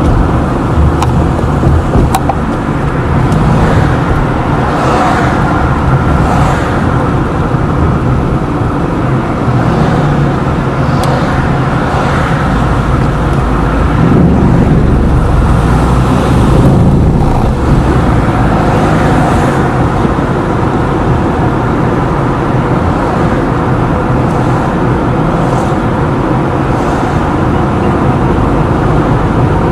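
A car driving steadily: engine and tyre-on-road noise, rising a little for a few seconds about halfway through.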